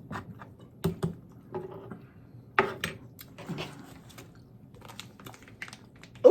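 Close-up eating of crunchy tostada shells: scattered crisp crunches and mouth clicks, the loudest crunch about two and a half seconds in.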